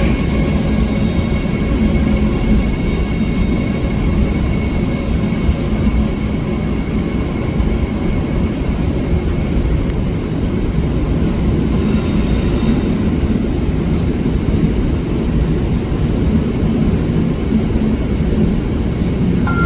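Train running through a station with a steady low rumble; faint high steady tones fade out within the first few seconds. A rising three-note station announcement chime begins right at the end.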